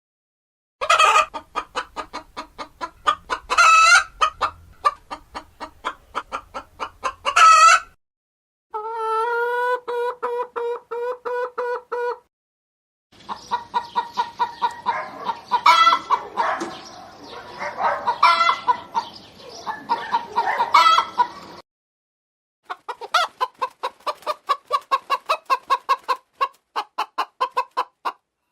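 Domestic hens clucking in quick runs of short calls, broken now and then by louder cackling squawks. The sound comes in several separate takes with brief silent gaps between them, one of them a run of steady, evenly pitched calls.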